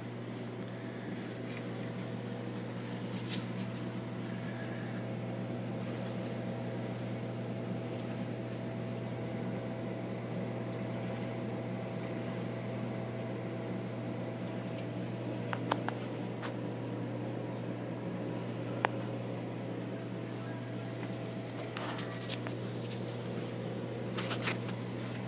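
Steady low hum of running reef-aquarium equipment (pumps and powerheads), with a few sharp clicks about two-thirds of the way through and again near the end.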